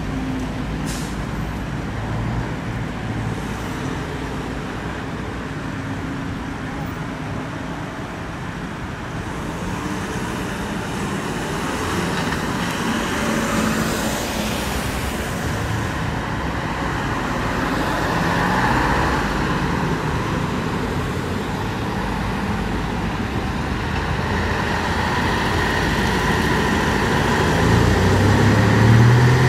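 A column of fire engines driving past one after another: the diesel engines and tyres of a command van and several fire trucks swell and fade as each passes. There is a loud rush of a vehicle going by about halfway through, and a truck's deep diesel rumble builds near the end as it approaches.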